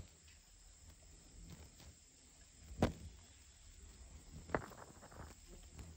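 Occasional sharp taps of beaks striking the ground as poultry peck up swarming winged monsoon insects. There is one tap about three seconds in and a short run of them a second and a half later.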